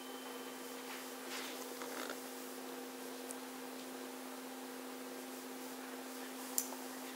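Steady low electrical hum in a quiet small room, with a few faint rustles and one short sharp click near the end.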